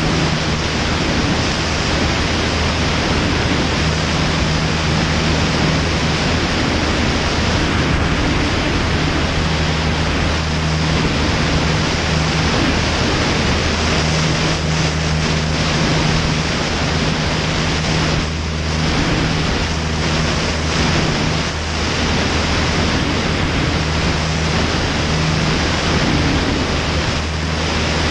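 Steady wind rush buffeting an Ikarus C42 ultralight's wing-mounted microphone in flight, over the continuous low drone of its engine and propeller.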